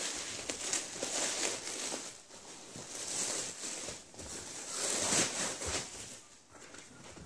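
Plastic mailing bag rustling and crinkling in irregular bursts as a parcel is unpacked by hand.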